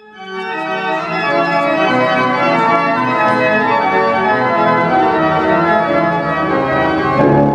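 Pipe organ playing a busy passage of quickly changing notes and chords over held low notes, cutting in suddenly at full volume.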